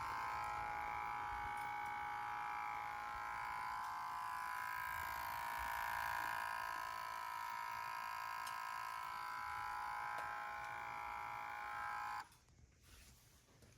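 A steady buzzing whine made of several high tones from the front right corner of a BMW F30's B58 engine, heard after the car is woken up. It cuts off suddenly about twelve seconds in.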